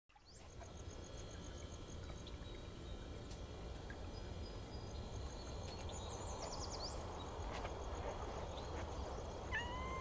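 Steady rush of flowing water, fading in at the start, with small birds chirping faintly and high above it. Near the end comes a short pitched call that rises and falls.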